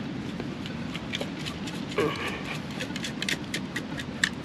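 Long-handled stainless-steel beach sand scoop digging into wet sand and being worked, with a quick run of sharp ticks and rattles as sand hits its perforated metal basket and the loudest knocks about two seconds in and near the end.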